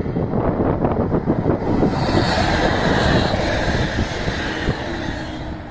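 DB class 612 diesel multiple unit, two units coupled, passing close by: a rush of engine and wheel-on-rail noise that builds about two seconds in and fades near the end. Heavy wind buffets the microphone throughout.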